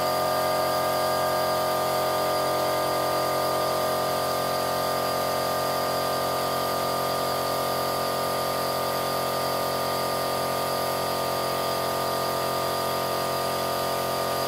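Spindle motor of a converted CNC milling machine running steadily, a loud hum with a high whine. The noise comes from the motor being mounted on welded steel bars with no rubber padding between the steel and the motor housing; the bearings are fine.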